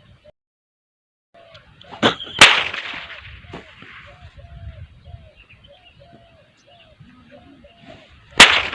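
Hand-twisted rope swung and cracked like a whip: two sharp cracks close together about two seconds in, and another near the end.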